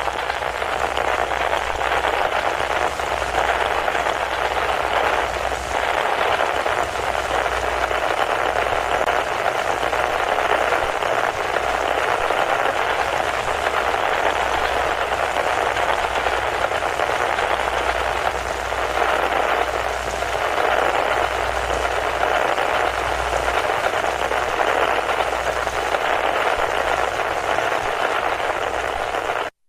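Static electricity crackling: a dense, continuous electric crackle with a low hum beneath it, cutting off suddenly near the end.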